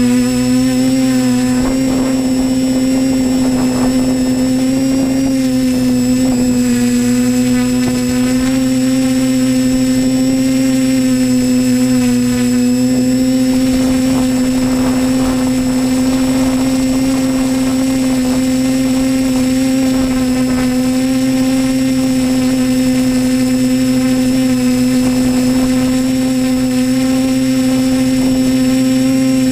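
TBS Discovery Pro quadcopter's electric motors and propellers running with a steady, pitched hum. The pitch wavers a little over the first half, then holds steady.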